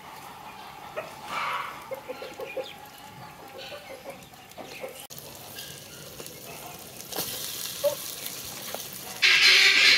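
Hens clucking in the background. About nine seconds in, a loud, steady sizzle starts, as of food going into hot oil.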